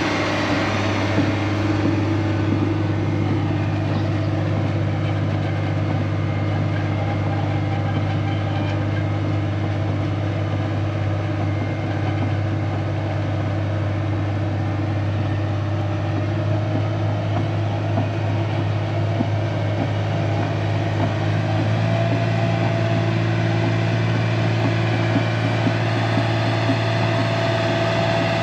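Bulldozer's diesel engine running steadily under load, its pitch stepping up slightly a little past twenty seconds in.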